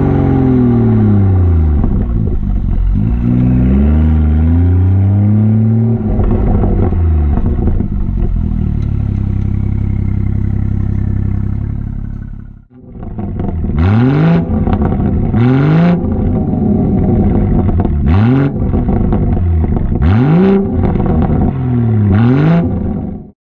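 BMW B58 3.0-litre turbocharged straight-six heard right at the tailpipe through an M Performance exhaust, its revs sweeping down and up several times. After a short break it is blipped five times, each rev climbing sharply and dropping back, before the sound cuts off.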